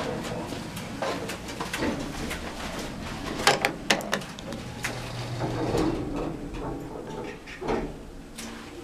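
Mitsubishi rope-traction passenger elevator (Elepet Advance V, 1991): a car-panel button clicks a few times about halfway through, then the two-panel centre-opening doors slide shut with a low rumbling hum.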